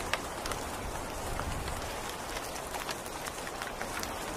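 Steady rain falling: an even hiss with scattered individual drops ticking sharply.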